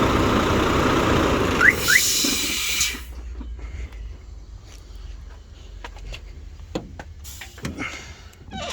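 Volvo FH truck's diesel engine running, then shutting down on a remote stop command: two short rising chirps sound about two seconds in, a burst of hiss follows, and the engine noise drops away about three seconds in, leaving a quiet background with a few scattered clicks.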